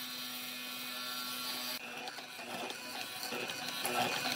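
Hollow-chisel mortiser running: its motor hums steadily at first, then from about halfway in the chisel and auger cut into the wooden leg, with irregular cutting noise that grows louder near the end.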